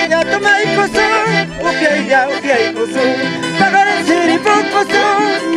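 Live Andean folk music on accordion and violin: a wavering melody played over sustained accordion notes.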